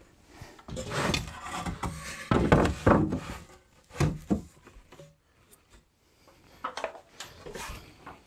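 Timber being handled against a wooden shelf frame: irregular scraping and knocks, with a sharp knock about four seconds in. Smaller knocks near the end as a stepladder is climbed down.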